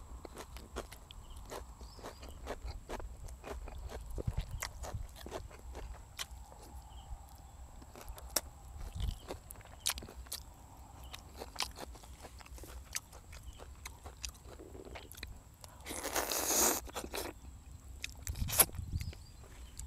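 Close-up eating sounds of a man chewing and biting braised pork leg, roast duck and fresh greens: wet smacks and small crunches throughout. A louder crunching stretch lasts about a second, roughly three-quarters of the way through.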